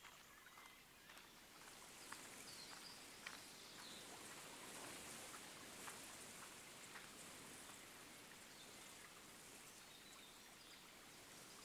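Near silence: faint outdoor room tone with a few soft ticks and light rustles between about two and seven seconds in.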